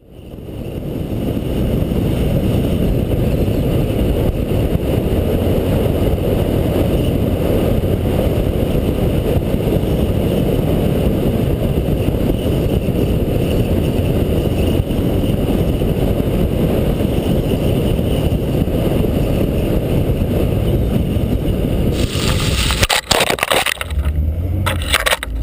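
Lada 2105 rally car at speed, its engine and road noise a loud steady drone. About 22 seconds in the car crashes, with a burst of crunching impacts and scraping that lasts about three seconds.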